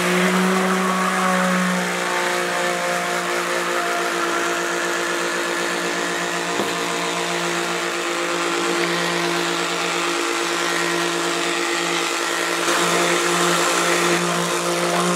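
Handheld stick blender running steadily in a plastic bowl, a constant motor hum as it blends lye solution into cold-process soap oils and the batter thickens.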